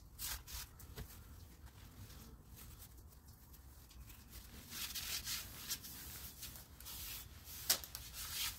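Paper towel rubbed and wiped around the inside of a new cast-iron brake drum, a faint run of scrubbing strokes that grows louder about halfway through, with one sharp tick near the end. The towel is damp with gasoline, cleaning off the drum's factory oil coating.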